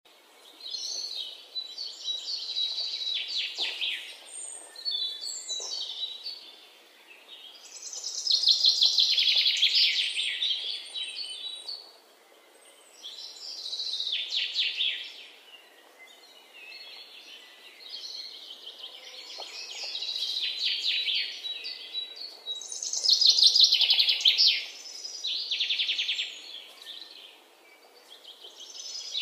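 Small birds chirping and trilling in repeated high-pitched bursts, each a second or two long, with short pauses between.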